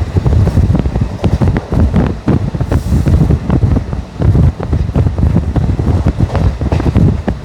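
ICF passenger coaches running at speed: a loud, continuous rumble of steel wheels on rail, broken by rapid, irregular clicks and clatter as the wheels pass over rail joints. Wind buffets the microphone.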